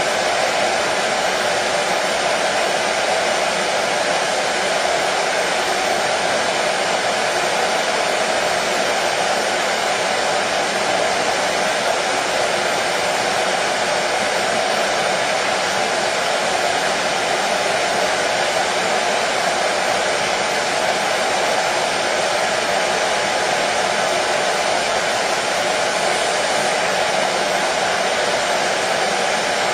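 Hair dryer running steadily: an even rush of air with a steady hum that does not change.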